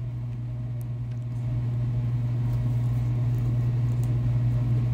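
A steady low machine hum with no speech, growing a little louder about two seconds in.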